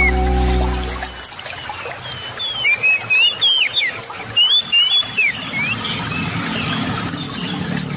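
Background music ends about a second in. Small birds then keep chirping in quick sliding whistled notes over the steady rush of a river.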